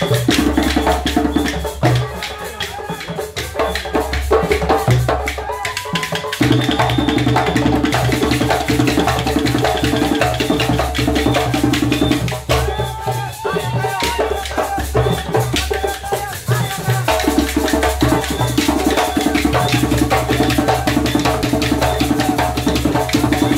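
Live djembe drumming ensemble playing a fast, dense rhythm, with a deep repeating drum pattern under the quick hand strikes that drops out briefly a few times.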